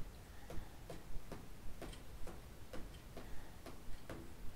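Faint, steady ticking of a clock, about two and a half ticks a second.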